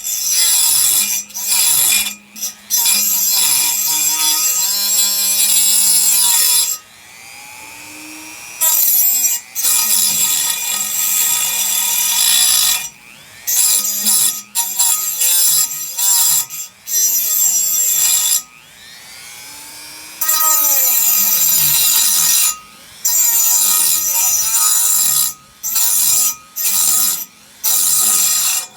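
High-speed rotary tool fitted with a diamond cutting wheel, cutting through a metal frame bar with a loud, high-pitched whine. It is started and stopped again and again, and its pitch sweeps down and back up as the motor slows and spins up between cuts.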